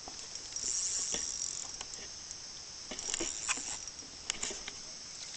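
A steady, high-pitched chorus of insects, with scattered light clicks and knocks over it, louder around one second in and again around three to four and a half seconds in.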